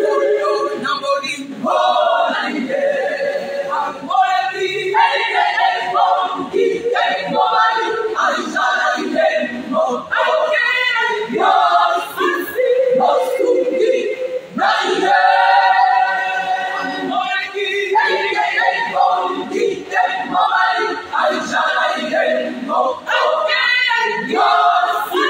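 Women's choir singing together, unaccompanied, many voices at once.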